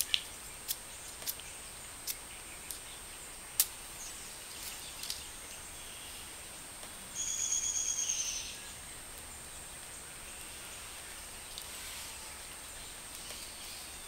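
Sharp single clicks, six of them spaced under a second apart over the first four seconds, as a lighter is struck to ignite dryer lint beside the vent hose. About seven seconds in, a high trilling call lasts about a second and a half over faint outdoor background noise.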